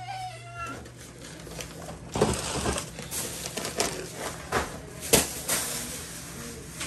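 A plastic bag crinkling and rustling as it is handled, in a string of sharp bursts, the loudest about five seconds in.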